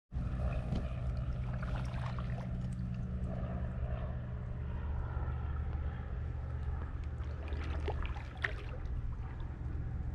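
A steady low droning hum, with light splashes and drips from kayak paddle strokes in calm water coming and going over it.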